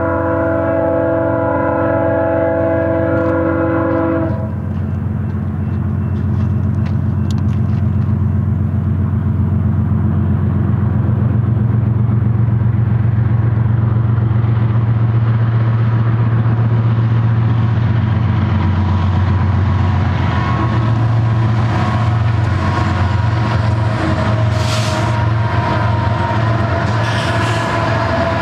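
Air horn of a BNSF GE ES44DC locomotive sounding one long chord that cuts off about four seconds in. The locomotives' diesel engines then drone louder as they pass, followed by the wheels of double-stack intermodal well cars rolling by with rail clatter and clicks.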